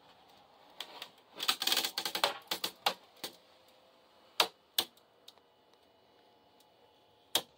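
Wooden cabinet panel in a caravan being opened by its handle: a quick run of rattling clicks and knocks. This is followed by a few single sharp clicks spaced out over the next seconds.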